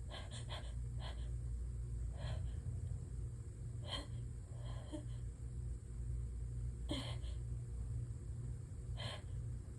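A woman's short, sharp gasping inhalations, repeated every second or two, as she fights to hold back an allergy sneeze. Under them is a steady low rumble.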